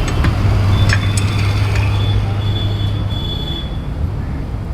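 Steady low rumble of a running vehicle, with a few sharp metallic strikes in the first second and a half and a thin high squeal lasting a couple of seconds.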